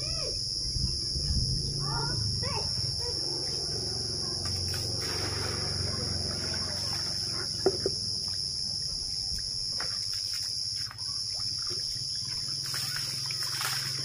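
Steady high-pitched insect chorus, with a few short wavering calls in the first couple of seconds and a single sharp knock about eight seconds in.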